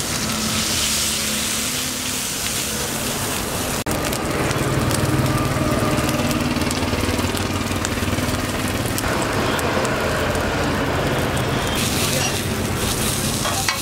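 Pav bun and vada heating on a hot flat iron griddle, a faint sizzle under steady street-stall background noise with a low hum. The sound drops out for an instant and changes about four seconds in.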